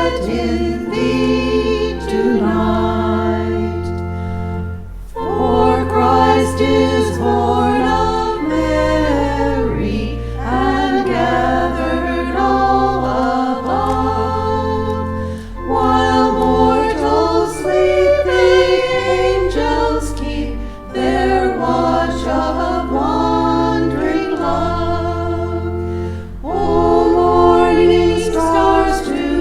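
Church choir singing in several parts, in phrases of about five seconds with short breaks between them. Sustained low notes underneath change with each phrase.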